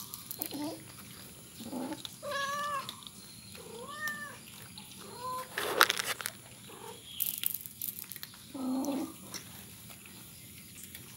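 Cats meowing: three short meows that rise and fall in pitch in the first half, with a few lower, shorter calls around them. A sharp click about six seconds in is the loudest sound, and another click follows a little later.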